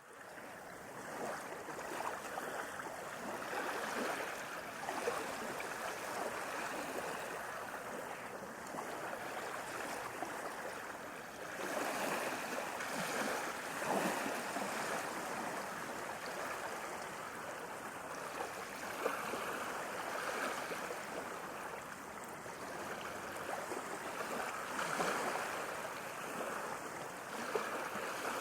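Ocean waves washing in, a steady rush of water that swells and eases every few seconds.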